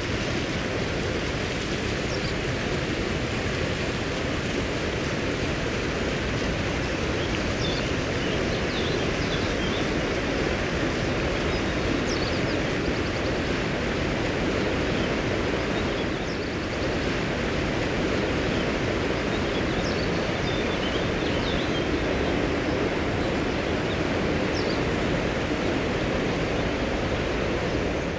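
Steady rushing outdoor noise with faint, brief bird chirps every few seconds.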